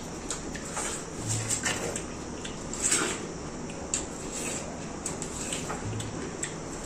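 Watermelon slices being bitten and eaten, wet biting and slurping, with scattered clicks and knocks as slices and rinds are handled on the table.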